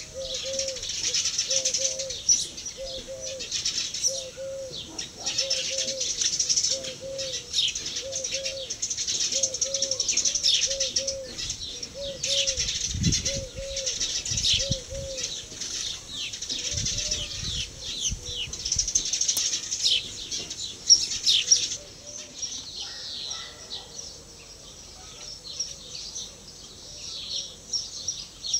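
Background birdsong: many small birds chirping busily, with a low short call repeating about twice a second. The chirping thins out about three-quarters of the way through, and there are two brief low rumbles near the middle.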